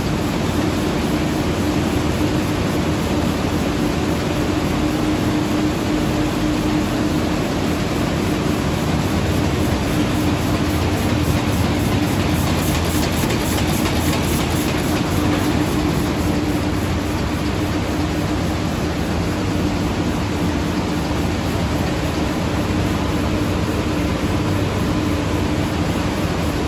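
KBA Rapida 105 nine-colour sheetfed offset press running, a steady, dense mechanical noise with a constant hum. A fast ticking comes up briefly in the middle, near the sheet delivery.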